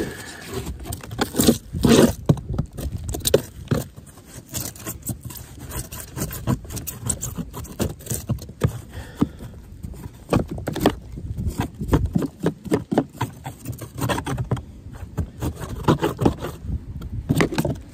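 Small hand scraper digging and scraping old, crumbly styrofoam core out of a camper roof panel, in quick irregular scratching strokes.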